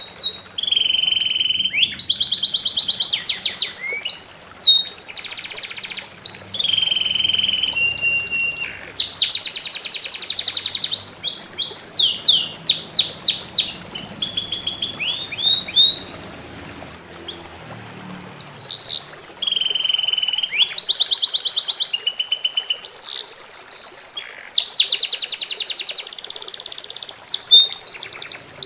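A songbird singing loudly in quick, varied phrases of rapid trills and clear whistled notes, with a short pause about two-thirds of the way in. Water trickles faintly underneath.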